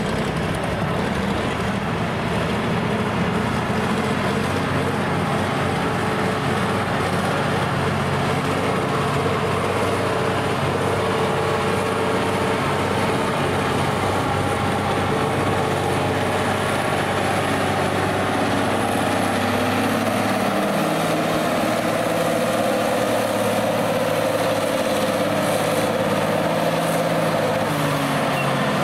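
Massey Ferguson farm tractor engine running hard under load as it drags a weight-transfer pulling sled. It holds steady, then its pitch drops near the end as the pull ends.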